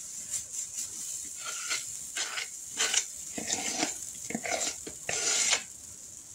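Cornbread batter frying in hot grease in a skillet, a steady sizzle, under a metal spoon scraping and clinking against a batter bowl and the pan as batter is dropped in. The longest scrape comes about five seconds in.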